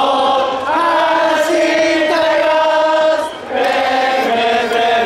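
A large crowd of baseball fans singing a cheering song in unison, holding long notes, with a brief break for breath a little past three seconds in.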